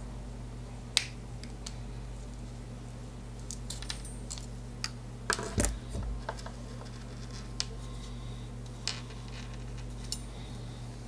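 Small handling noises at a wooden desk: scattered clicks and light knocks of needle-nose pliers and earphone cable, with the loudest cluster of knocks about five to six seconds in, as the pliers are set down on the desktop. A steady low hum runs underneath.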